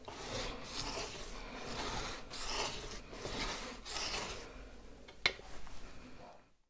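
Paintbrush bristles scraping thinned black acrylic paint over rough, textured filler on a canvas: a series of rasping swishes, roughly one a second. A single sharp tap about five seconds in, and the sound cuts off abruptly near the end.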